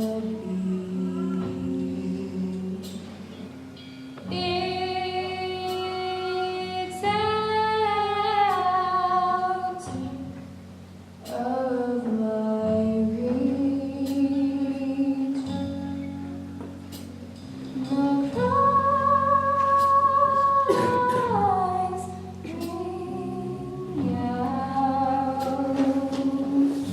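A singer performing a slow song from a stage musical, with long held notes over sustained accompaniment.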